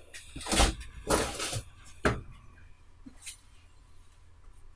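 Plywood table of a homemade CNC router being slid off its drawer slides: two scraping rubs in the first second and a half, then a knock about two seconds in and a couple of faint clicks.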